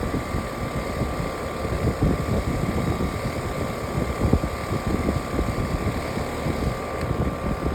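Outdoor air conditioner condenser unit running, its fan spinning steadily with a rumbling whir and a faint steady hum.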